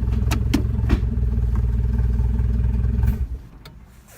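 Turbocharged Honda K24 engine idling steadily, with a few light clicks in the first second, then cutting off about three seconds in.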